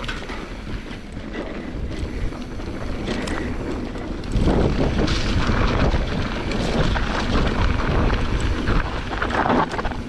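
Wind rushing over the microphone and tyres rolling on a dirt trail during a fast mountain-bike descent, with scattered rattles and knocks from the bike; it gets louder about four seconds in as the speed builds.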